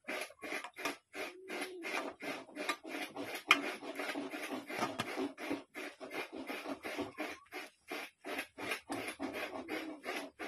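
Rhythmic rasping strokes, about three to four a second, each one short with a brief pause between.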